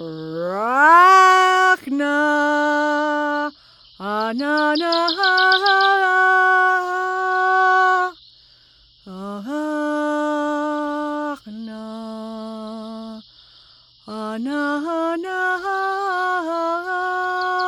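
A woman's voice intoning long, sustained vowel tones as a healing toning exercise: about six held notes with short breaths between. The first glides upward into its pitch, and one near the middle sits lower. Crickets chirp steadily in the background.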